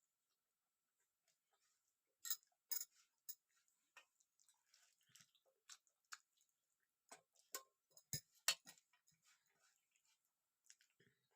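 Faint eating sounds: a scattered run of short mouth clicks and smacks from chewing a mouthful of rice with dal, loudest about eight seconds in.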